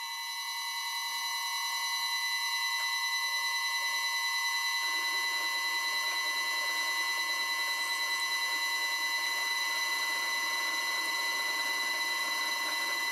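Vintage Karger lathe driven through a VFD at 20 Hz. The motor drive gives a steady high-pitched electronic whine with overtones while a 10 mm twist drill bores into the turning steel workpiece.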